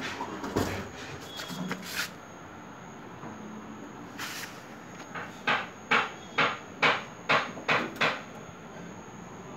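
A quick run of about eight sharp knocks, roughly three a second, a little after the middle, with a few softer bumps and rustles near the start.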